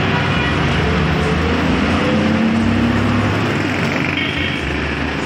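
Road noise of a moving city bus in heavy traffic, heard from inside the bus: the bus engine running with a steady low hum under the noise of surrounding vehicles.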